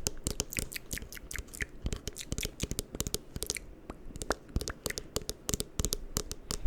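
Lotion-covered fingers making rapid, irregular sticky clicks and crackles close to the microphone, as the tacky lotion squelches and pulls away from the skin and the plastic bottle being tapped.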